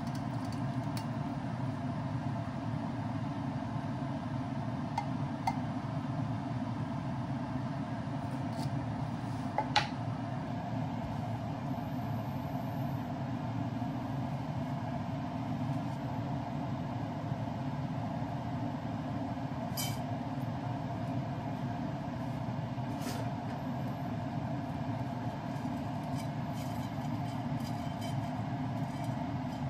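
Steady low rumble and hum of a frying pan of water heating on an induction hob, with a few light clinks.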